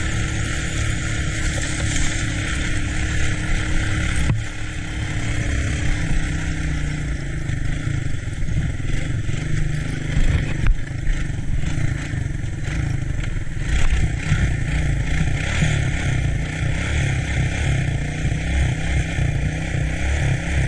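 ATC three-wheeler engine running while being ridden. The engine note dips briefly about four seconds in, then picks up again.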